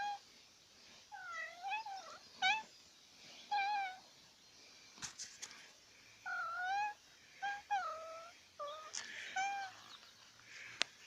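A domestic cat meowing again and again, about eight meows, some short and some drawn out, each bending up and down in pitch. A couple of sharp clicks fall between the meows, one near the end.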